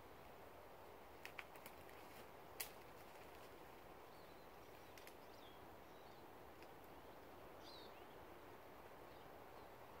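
Faint forest ambience: a steady low hiss, a few sharp clicks between one and three seconds in, and brief high chirps from a small bird around the middle and again near the end.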